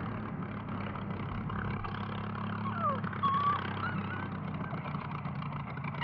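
An engine running steadily, a low even drone, with a few faint high squeaky glides about two to four seconds in.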